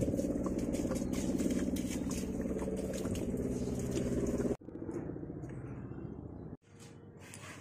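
Water pouring out of a plastic jerry can onto potted plants. It stops abruptly about four and a half seconds in, and what follows is quieter.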